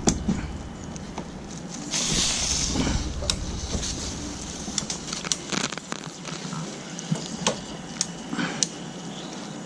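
A white PVC water pipe being cut into: scattered sharp clicks and clacks of the cutting tool on the pipe, with a short hiss about two seconds in.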